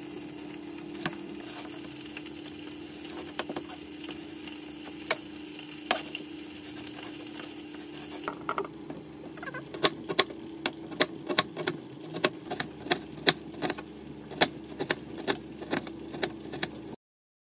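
Kitchen knife cutting a peeled yongchak (tree bean) pod on a wooden cutting board, with a steady low hum beneath. At first there are scattered taps as the pod is sliced lengthwise. From about ten seconds in comes a quick, regular run of chopping strikes, about three a second, as it is shredded into thin strips. The sound stops suddenly near the end.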